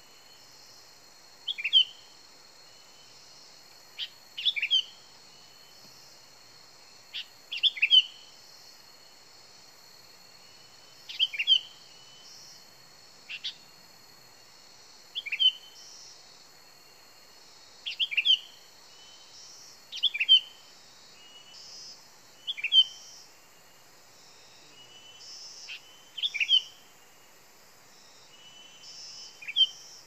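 Sooty-headed bulbul (kutilang) calling as a decoy: short, sharp chirps of one or two notes, repeated about every two to three seconds, about a dozen in all. A steady high-pitched hum runs underneath.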